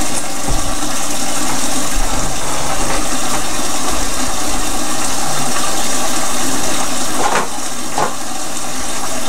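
Water running steadily from a kitchen tap, with a couple of short knocks near the end.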